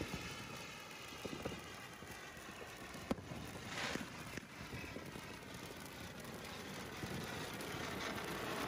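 Handheld gun-shaped fountain fireworks hissing steadily as they spray sparks, with a single sharp pop about three seconds in and a brief louder rush of hiss just after.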